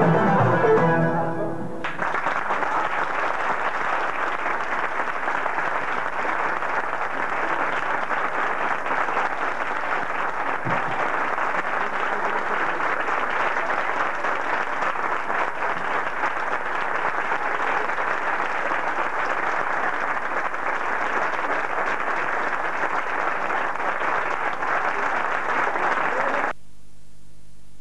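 A Turkish instrumental ensemble of plucked and bowed strings ends its piece about two seconds in, followed by steady audience applause. The applause cuts off abruptly near the end, leaving a faint low hum.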